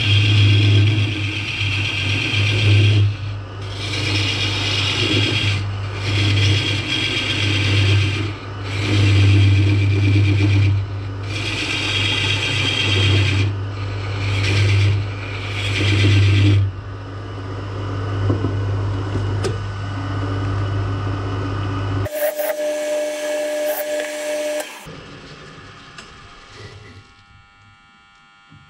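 Woodturning lathe (a 1970s Coronet) running with a steady motor hum while a hand-held turning tool cuts into a spinning ash blank in repeated passes of a few seconds each, shavings hissing off. The cutting stops about two-thirds through, the motor hum cuts off abruptly a few seconds later, and a brief different noise follows.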